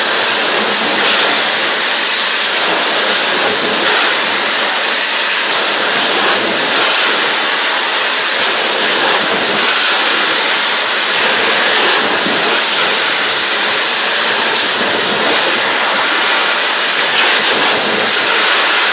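Ultra-high-pressure water jetting at 1200 bar from an automatic pipe-cleaning head: a loud, steady hiss of spraying water that holds level throughout.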